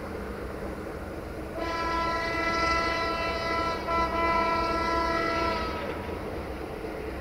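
LDE1250 (040-DF) diesel-electric locomotive's horn sounding two long blasts, one right after the other, over the steady low rumble of the locomotive's diesel engine as it approaches with a freight train.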